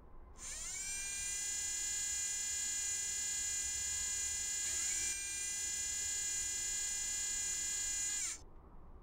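Small electric motor whine for the rover's mast camera head turning, as in an animation sound effect. It starts with a rising sweep in pitch about half a second in, holds steady with a second upward glide midway, and cuts off sharply a little after eight seconds in.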